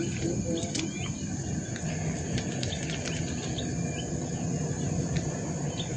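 Steady high-pitched drone of insects on a riverbank, over a low rumbling background, with a few sharp small clicks from fishing tackle being handled.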